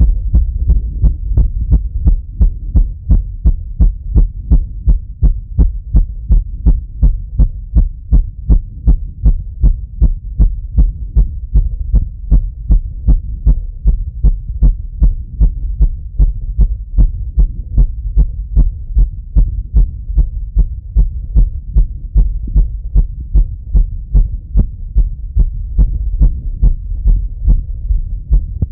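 A man's heartbeat heard through a Littmann stethoscope: fast, even lub-dub beats, heavy and low. The heart is still racing as it recovers after a run.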